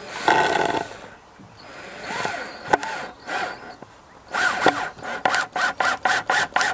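Cordless drill driving a screw into wood: a short run about half a second in, then from about four seconds a string of brief stuttering bursts, several a second, as the drill's battery runs flat.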